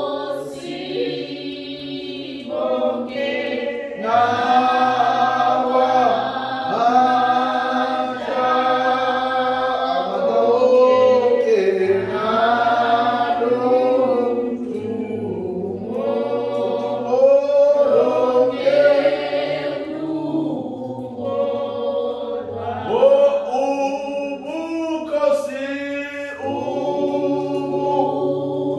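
Church congregation singing a hymn together, many voices holding long chords in harmony.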